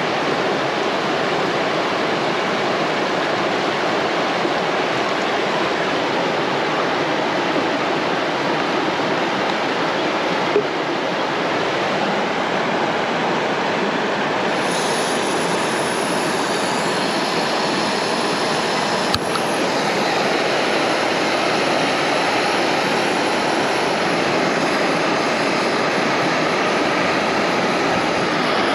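Steady rush of river rapids. About halfway through, a higher gas hiss joins in as the Primus canister stove's valve is opened. A few seconds later a single sharp click lights the burner, which then runs on under the water noise.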